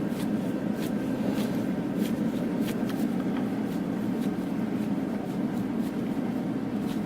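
Heat gun's blower running with a steady hum, under scattered soft clicks and rustles of hands pinching warm, pliable polyethylene sheet around the rod.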